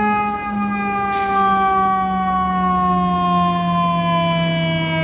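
Fire engine's mechanical siren winding down in one long, slowly falling wail as the rig approaches. A short hiss comes about a second in.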